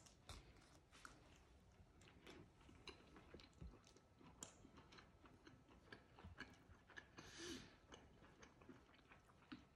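Faint chewing of a bite of palak paneer, with scattered soft mouth clicks.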